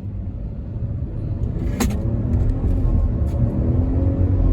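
Jeep Wagoneer's 3.0-litre twin-turbo Hurricane straight-six under hard acceleration from low speed, heard from inside the cabin: a low rumble builds steadily louder with a faint rising engine tone. A single sharp click about two seconds in.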